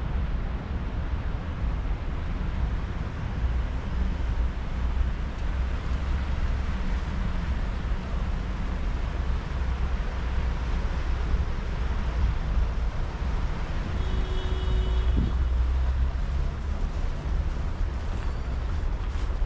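Steady city road-traffic rumble of passing vehicles, with a single brief tone about fourteen seconds in that drops away after about a second.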